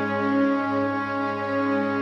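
Slow background music of long held chords.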